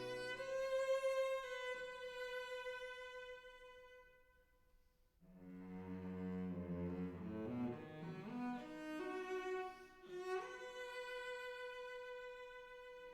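Slow instrumental string music: a long held high note that fades away about four seconds in, a brief near-silent pause, then lower notes with a deep bass stepping upward, and another long held note near the end.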